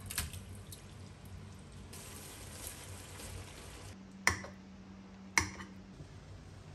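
Liquid being poured with a steady hiss, then two sharp clinks of a metal fork on a ceramic plate about a second apart.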